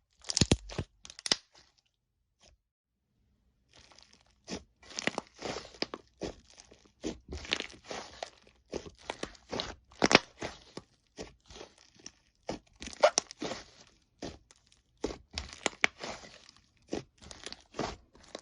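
Slime being played with, making crisp crackling and popping sounds: a short run of crackles at the start, a pause of about two seconds, then dense, irregular crackling.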